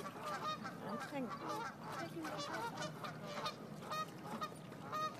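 A flock of waterfowl honking: many short, overlapping calls.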